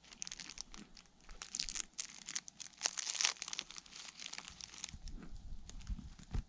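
Footsteps crunching through snow and dry leaves, with a dense crinkling rustle for the first few seconds, then heavier, duller footfalls from about five seconds in.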